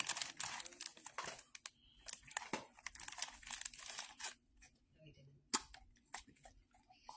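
Dog crunching hard pork skins (pork rinds): faint, irregular crisp crackles, dense for about four seconds and then only a few scattered ones.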